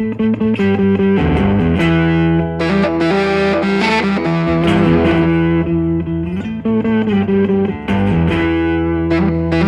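Background music: distorted electric guitar playing a steady strummed riff over a bass line.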